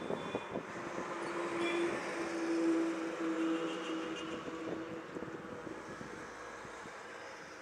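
A motor vehicle passing on a nearby road: a running hum and road noise that swell to a peak about three seconds in, then fade away.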